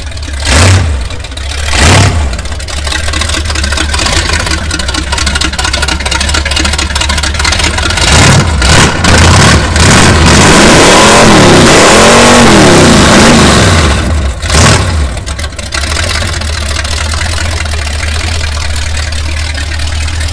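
The engine of a lifted 1941 Ford truck mudder running loud. The throttle is blipped a few times, then revved hard in the middle with the pitch rising and falling, blipped once more, and it settles to a steady idle.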